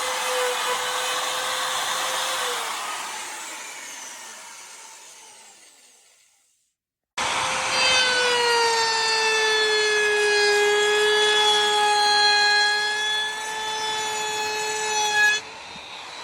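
800W electric wood router's motor running with a high, steady whine. It is switched off and winds down, the pitch falling as it fades over a few seconds. After a short silence it starts again abruptly at full speed, its pitch sagging a little. Near the end it stops abruptly.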